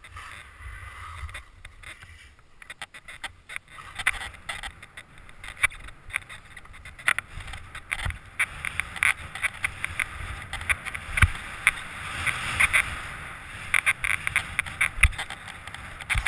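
Skis sliding and scraping over groomed snow on a downhill run: a steady rushing hiss with many sharp clicks and scrapes, louder from about four seconds in.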